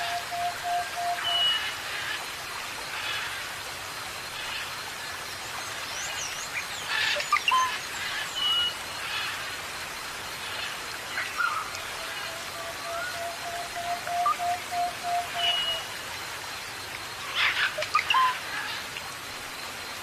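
Several birds calling and chirping over a steady hiss of falling water or rain. Clusters of sharp calls come near the start, about a third of the way in and near the end. A long, level whistle is held briefly at the start and again for several seconds about two-thirds through.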